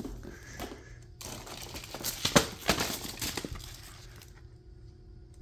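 Packs of fireworks being handled: irregular crinkling and rustling of packaging, with a sharper crackle about two seconds in, dying away near the end.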